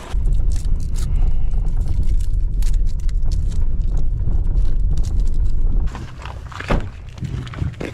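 A car driving, with a steady low road rumble that drops away about six seconds in, followed by a few light knocks.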